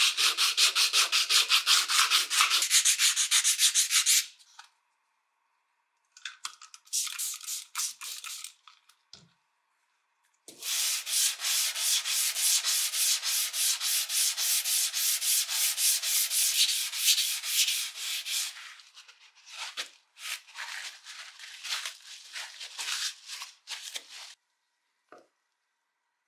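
Sandpaper being rubbed back and forth on a metal wrench by hand, in quick, even strokes. It comes in several runs with short breaks, and near the end only a few scattered strokes.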